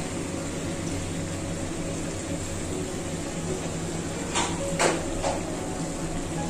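Three short knocks of a kitchen utensil, about four and a half to five seconds in, over a steady low hum.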